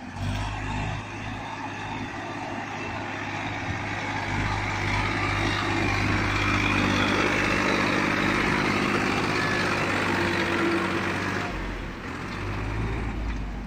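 Massey Ferguson 245 tractor's three-cylinder diesel engine working under load, pulling a heavily loaded trailer up a slope on a dirt track. It grows louder as the tractor comes past and fades near the end as it moves away.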